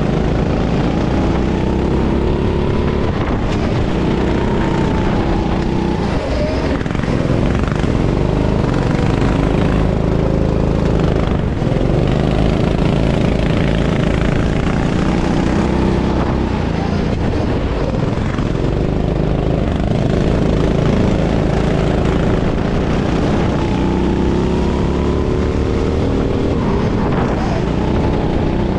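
Racing kart engine heard onboard, its pitch repeatedly rising as it revs up and falling away as it slows, over a constant noisy rush.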